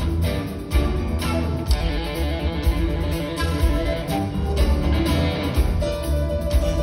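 Rock band playing live: flute and electric guitar over bass, drums and keyboards, with a steady driving beat, heard from among the audience.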